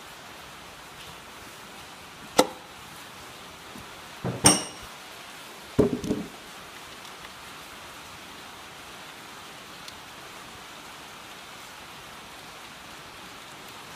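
Metal clinks and clanks from tools and engine parts being handled: a sharp click about two seconds in, a louder ringing clink a couple of seconds later, then a short rattling clatter. A steady hiss runs underneath.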